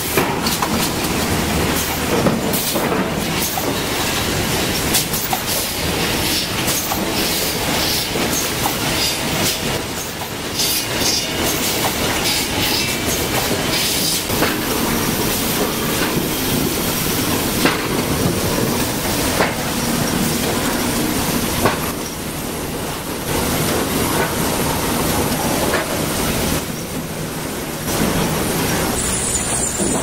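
Sawmill chain conveyors running: steel drive chains rattling over sprockets and sawn boards knocking together as they are carried across the transfer decks. It is a steady, dense clatter with frequent sharp knocks, and the mix shifts a few times.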